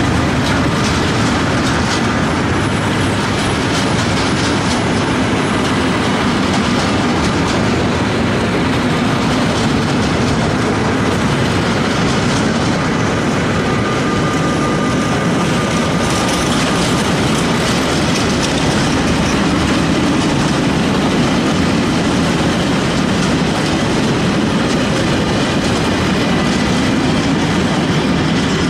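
Freight wagons of a long mixed freight train rolling past close by: a steady heavy rumble with wheels clattering over the rail joints.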